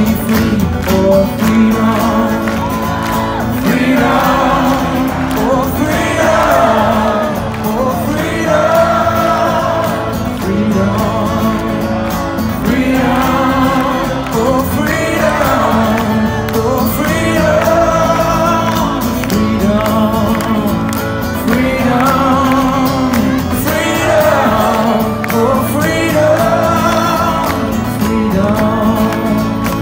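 Live acoustic guitar and singing coming through a concert PA, heard from within the crowd.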